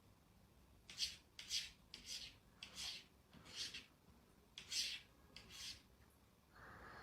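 A series of faint, short scraping strokes, roughly two a second and unevenly spaced, with a pause in the middle.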